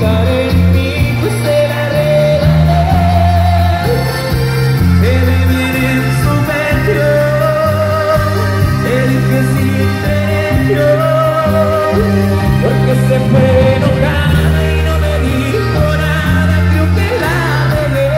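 Amplified live band music: an electric bass line stepping between low notes in a steady beat, with guitar, keyboards and a lead singer.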